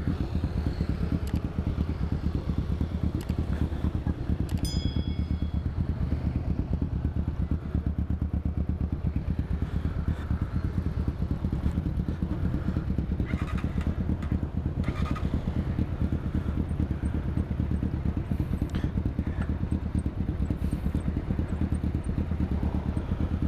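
Honda TMX 125's single-cylinder four-stroke engine, all stock, idling steadily at a standstill with an even putter.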